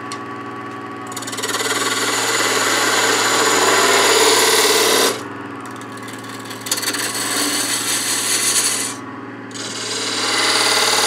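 Wood lathe running with a turning tool cutting a spinning pepper mill blank between centers: a loud cut from about a second in to about five seconds, lighter cutting after that, a brief pause, then another loud cut near the end. The lathe's steady low hum runs underneath.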